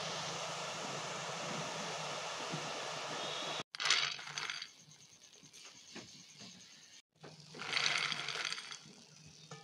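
Boondi frying in hot oil with a steady sizzle that cuts off sudden about three and a half seconds in. Then crisp fried boondi is poured onto a steel plate twice, each pour a short rattle of small hard balls landing on metal.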